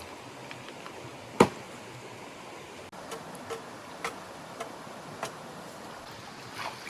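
Steady rush of running stream water, with one sharp knock about a second and a half in, then a string of lighter clicks and taps spaced about half a second apart.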